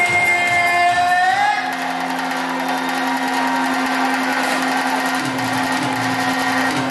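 Live band music through a PA: a singer holds a long note that slides upward about a second and a half in, then a held chord over crowd noise, with a bass line coming in near the end.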